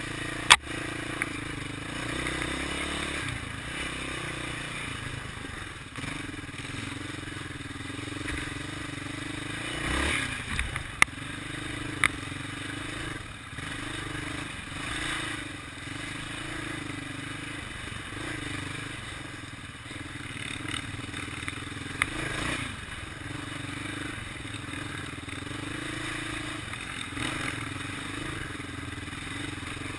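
Single-cylinder sport ATV engine running at steady part throttle over a rough dirt trail, its note dipping and picking up every second or two. A few sharp knocks and rattles come as the quad jolts over rocks and ruts.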